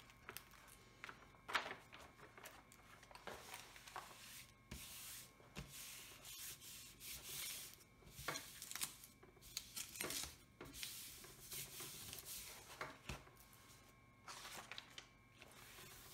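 Hands rubbing and smoothing the paper cover sheet of a large diamond painting canvas, with soft intermittent rustling, brushing and a few light clicks as the sheet is pressed flat and lifted.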